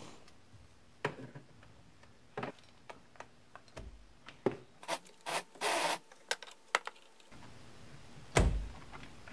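Scattered plastic clicks, scrapes and rubbing as hands work at the back of a Kia steering wheel, pushing on the plastic release tabs that clip the driver's airbag in, with a longer rubbing scrape near the middle and a duller knock near the end.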